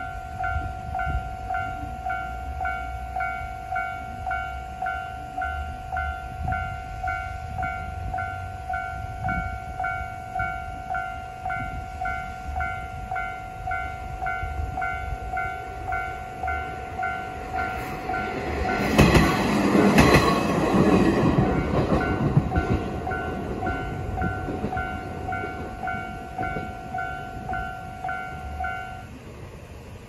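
Japanese level-crossing alarm ringing with its slow-tempo standard electronic bell, a steady ding about twice a second, while a diesel railcar rumbles through the crossing about 18 to 23 seconds in. The bell stops near the end as the crossing clears.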